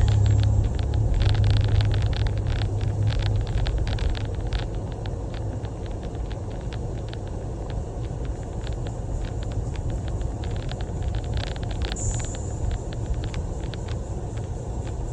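A car running with a steady low rumble, loudest in the first few seconds and easing off after, with many short crackles over it.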